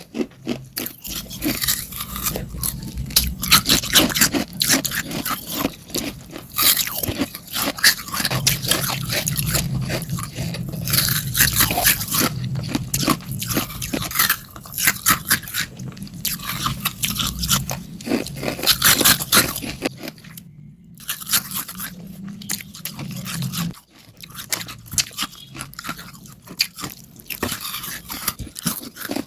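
Ice being bitten and chewed close to the microphone: a quick, dense run of crisp cracking crunches, with one short break about two-thirds of the way through.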